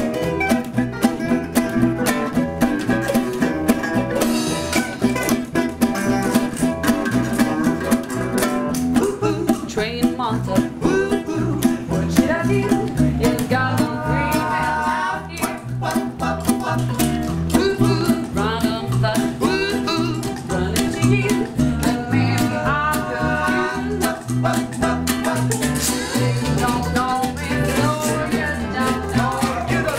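An acoustic string band plays an upbeat tune: strummed ukuleles and banjo over a steady upright-bass and percussion pulse.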